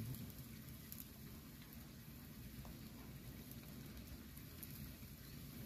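Soy-glazed pomfret on bamboo skewers grilling over wood embers, giving a faint, steady sizzle with a few small crackles.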